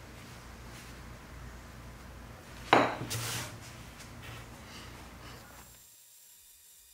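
A wooden dowel set down on a work mat with one sharp knock about three seconds in, followed by a brief rubbing roll, over a steady low hum that drops away near the end.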